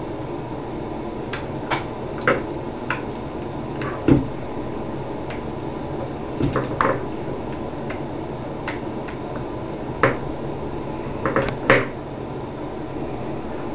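Scattered light clicks and taps of an Allen wrench and small parts being handled on a Smart Parts Ion paintball marker, as the hoses and a wire are disconnected from its circuit board. The sounds are irregular and come over a steady hiss, with one heavier thump about four seconds in and small clusters of clicks near the middle and towards the end.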